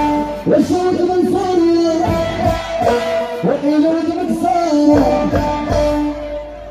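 Moroccan orkistra band music: a melody of sliding, bending notes over a steady low bass, dipping in level near the end.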